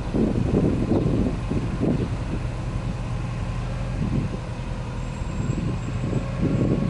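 Subaru Legacy 2.0GT spec B's turbocharged EJ20 flat-four running steadily at idle, heard at its twin tailpipes as a low, uneven exhaust burble.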